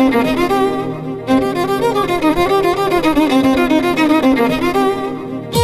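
Background music: a melody on violin with vibrato.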